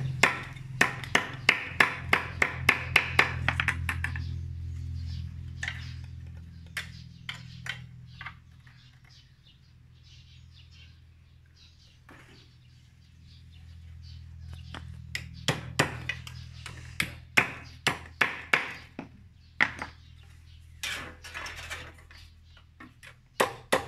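Runs of quick, sharp metallic taps, about four a second, as a hand tool strikes a sheet of tin cut from a can, with a sparse stretch of single knocks in the middle. A passing vehicle's low hum sits underneath, fading a few seconds in and returning later.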